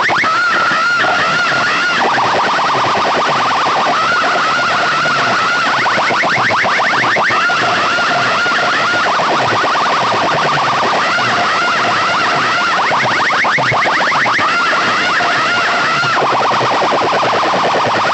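Siren-style electronic effect blasted through a large DJ sound system. It alternates between runs of fast, repeated rising sweeps and a warbling, wavering tone, loud and unbroken throughout.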